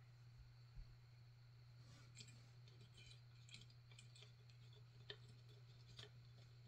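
Faint, scattered clicks and light taps of small plastic model parts handled against each other, a scale figure being shifted about on a model jeep chassis, over a steady low hum.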